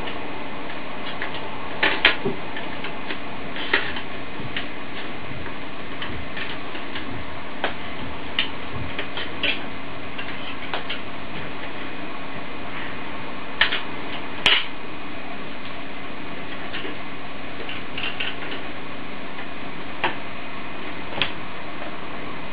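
Scattered sharp clicks and taps of plastic LEGO Technic parts being handled as the model's roof panels are lifted and its folding parts moved by hand, about a dozen over a steady background hiss.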